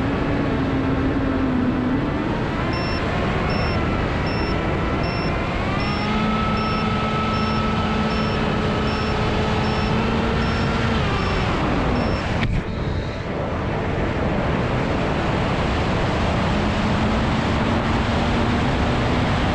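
Onboard audio of an AtomRC Dolphin FPV plane in flight: loud wind rush over the microphone with the whine of its brushless motor and propeller, which rises in pitch about six seconds in and glides back down around twelve seconds. A short high beep repeats about every two-thirds of a second through the first half.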